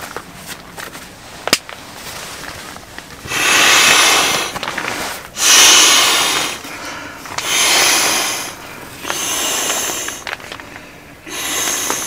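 Orange inflatable sleeping pad being unfolded with light nylon rustling and clicks, then blown up: five long rushes of air into its valve, each about a second long and a second or so apart.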